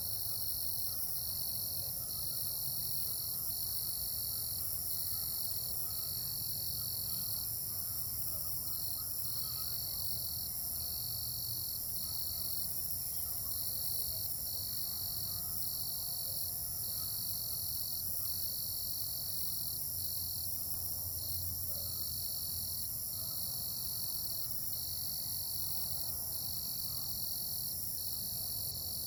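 Night chorus of calling frogs: a steady, high-pitched ringing, with one call repeating in runs of about a second with short breaks between them. A faint low rumble sits underneath.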